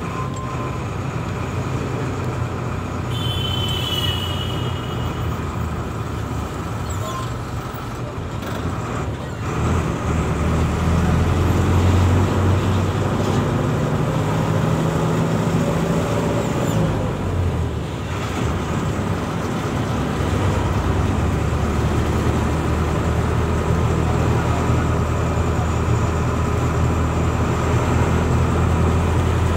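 Steady engine hum and road noise heard from inside a moving vehicle in traffic, with a brief high-pitched tone about four seconds in; the low hum grows louder about ten seconds in.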